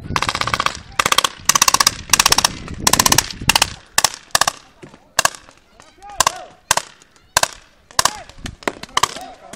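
Paintball markers firing: rapid strings of shots in the first three and a half seconds, then single shots about every half second.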